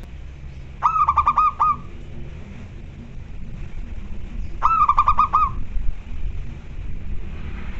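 Zebra dove (perkutut) singing: two short phrases of rapid, staccato coo notes, five or six notes each, about a second in and again about five seconds in.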